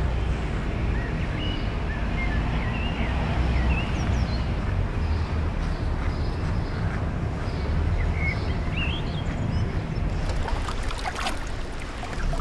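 Steady low rumbling noise, with faint short high chirps scattered over it and a few sharp clicks near the end.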